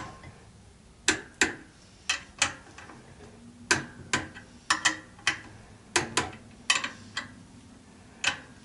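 Click-type torque wrench ratcheting and clicking as the big-end cap bolts of an RB25DET connecting rod are done up to about 15 N·m. The sound is sharp metallic clicks, many in pairs, at irregular intervals.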